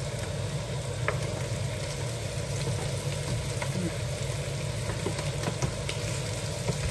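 Sliced fatty meat sizzling in a frying pan as its fat renders out, stirred with a wooden spoon that knocks against the pan a few times.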